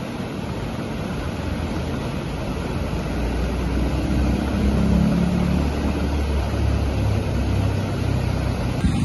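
Fast brown floodwater rushing across a road with a steady roar. From about three seconds in until near the end, a vehicle engine hums low underneath it.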